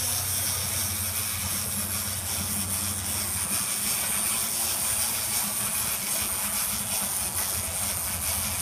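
Clockwork motor of a wind-up walking chicken toy whirring steadily as the toy walks.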